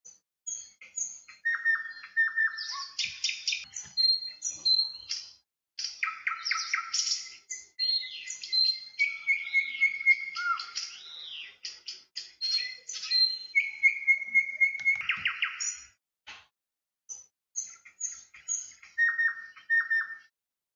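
Several songbirds calling and singing together: quick trills, short repeated chirps and whistled notes that slide up and down, with brief pauses between phrases.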